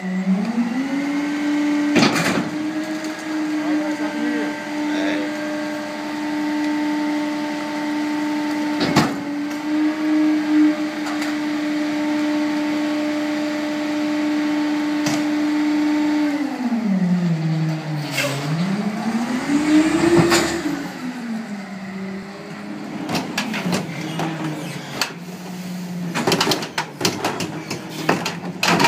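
Rear-loading garbage truck's engine revving up and holding high as the hydraulic packer cycles the load, then dropping, briefly revving again and settling back toward idle. Sharp metal clanks from the packer sound a few times, and a quick run of clanks comes near the end.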